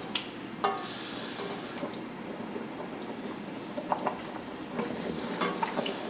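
Curry oxtail gravy bubbling in a pot brought back to a boil: a steady low hiss with scattered soft pops and clicks.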